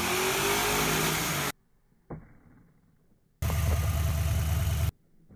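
Car engines in quickly cut clips: a Ford Mustang engine on a chassis dyno running with a slowly rising pitch for about a second and a half. After a short gap, an engine with its valve covers off and the rocker arms exposed runs steadily with a deep rumble for about a second and a half, then cuts off.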